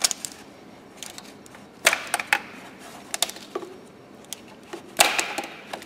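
Sharp plastic clicks and rattles of ignition-coil wiring connectors on a Renault K4M 16-valve engine being unlatched and pulled off the coils, a handful of clicks spaced irregularly.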